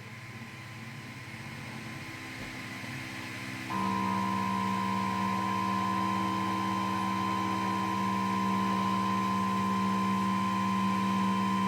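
Stepper motors of a Monoprice Maker Select Plus 3D printer whining as the print head moves. The hum grows slightly louder at first, then jumps about four seconds in to a louder whine of several held tones that stays steady.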